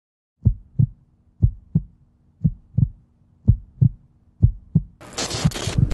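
Heartbeat sound effect: five low double thumps, lub-dub, about one a second. About five seconds in, a sudden loud burst of hissing noise cuts in over the last beats.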